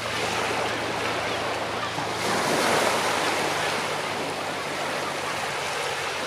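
Small waves of the North Sea breaking and washing up a shingle beach, with one wash swelling up about two seconds in and easing off again.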